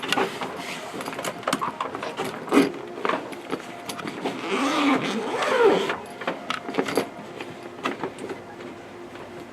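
Rustling, clicking and knocking of things being handled while someone rummages through a bag.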